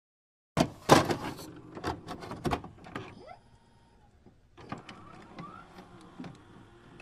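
Edited-in sound effects for a glitching loading-bar animation: a loud run of sharp clicks and crackles starting about half a second in, then scattered clicks and short rising electronic whirrs around three and five seconds in.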